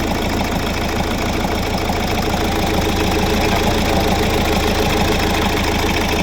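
Hyundai Accent 1.6 CRDi diesel engine (D4FB) idling steadily with a rapid even diesel clatter, running just after its first start following a full overhaul with all-new internal parts.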